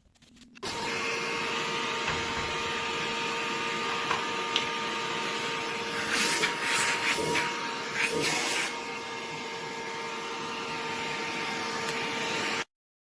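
Pet grooming clipper with a built-in vacuum running with a steady whine. Two louder hissing surges come around the middle, and it cuts off suddenly near the end.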